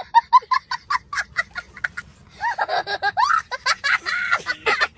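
A young child laughing hysterically: quick bursts of ha-ha-ha about five a second, then longer whooping laughs that swing up and down in pitch.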